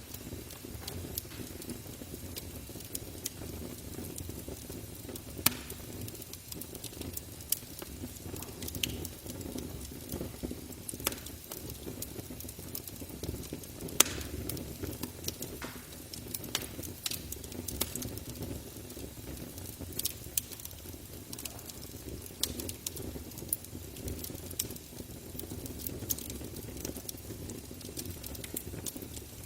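Campfire burning: burning wood crackling and popping in irregular sharp snaps over a low steady rumble of the flames, with louder pops about five and fourteen seconds in.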